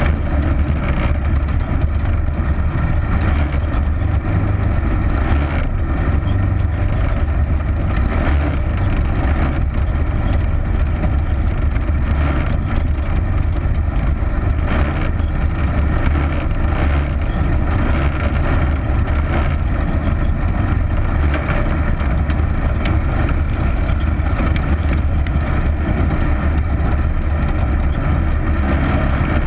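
Racing engine running steadily at speed on a dirt oval, heard through an onboard camera microphone.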